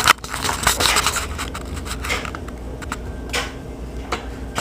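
Irregular scraping and rubbing handling noises, a few scuffs with no steady rhythm, the strongest about three and a half seconds in.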